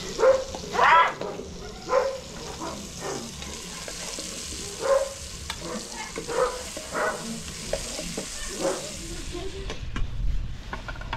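Tomatoes sizzling in a pan over a wood fire as a metal ladle moves them in from steel bowls and stirs them, with a steady hiss under several short pitched sounds; the hiss thins near the end.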